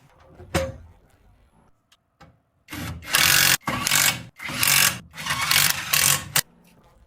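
A single sharp knock, then a run of about four loud rasping strokes, as of a tool scraping or rubbing against a part.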